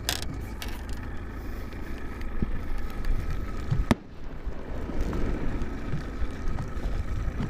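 Steady low rumble of a small fishing boat moving under outboard power, with wind on the microphone and water noise. A single sharp click comes about four seconds in.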